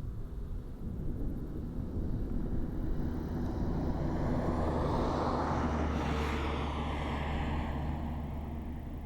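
Car driving on a mountain road, with a steady engine and road hum. A passing vehicle's rush swells to a peak about six seconds in, then fades.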